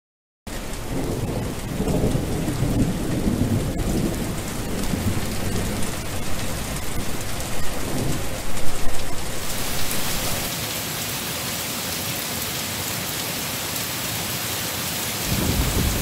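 Heavy rain starting abruptly about half a second in, with low rolling rumbles of thunder under it for the first several seconds. From about ten seconds in it settles into a steady, even hiss of rain.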